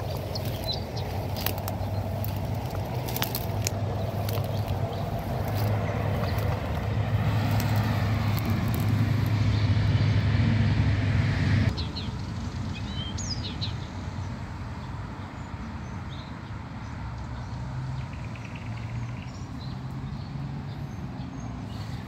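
Nightingale singing in short high whistles and clicks, over a low steady hum of traffic that grows louder and cuts off abruptly about halfway through.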